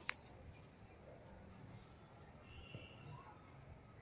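A macaque bites into an ear of fresh corn, giving a single sharp crunch right at the start, then near-silent outdoor background with a faint high chirp about two and a half seconds in.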